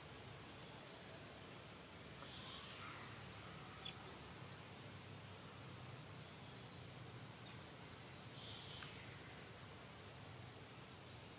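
Steady high-pitched insect drone, with a few short high cries, some falling in pitch, from an infant long-tailed macaque begging its mother to nurse.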